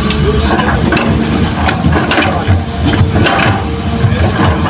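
Diesel engine of a hydraulic excavator running under load while it empties a bucket of soil and rock into a steel dump-truck bed. Knocks and clattering from the falling rock come in clusters about a second apart over the steady engine hum.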